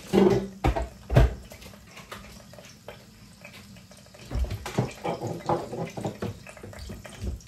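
Kitchen cookware and utensils knocking and clattering: three sharp knocks in the first second and a half, then a run of lighter clatter in the second half.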